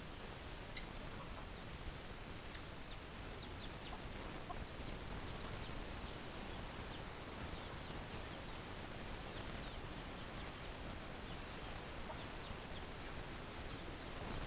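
Chickens clucking faintly, with scattered short, high chirps over a steady background hiss.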